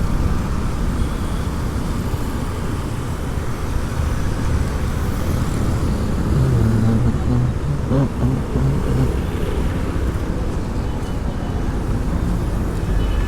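Motorcycle engine running amid steady road traffic noise.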